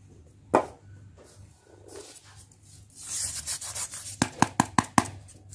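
Polystyrene foam pieces being handled and rubbed: a single click about half a second in, a dry scraping rub from about three seconds in, then a quick run of sharp clicks.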